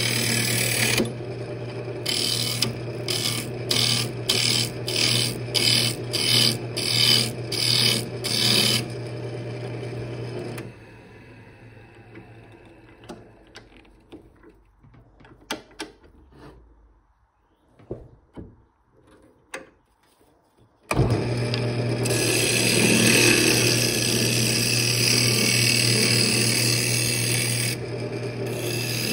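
Wood lathe running with a steady hum while a turning tool cuts a wooden lid, in about nine repeated passes over the first nine seconds. About ten seconds in the lathe stops, leaving a few knocks and clicks while the tool rest is moved. About twenty-one seconds in it starts again suddenly, and the tool cuts steadily.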